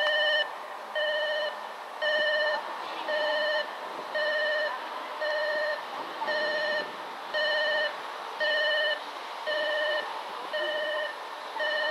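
Electronic railway warning alarm ringing in regular pulses, each under half a second long, about four rings every three seconds, warning of the approaching train.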